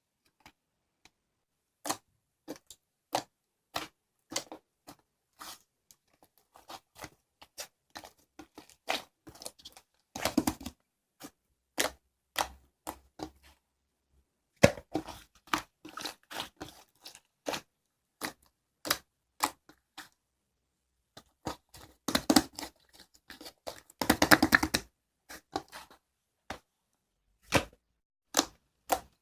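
Slime being handled and pressed, giving sharp, irregular pops and clicks, with a few denser crackling runs about a third of the way in and twice later on.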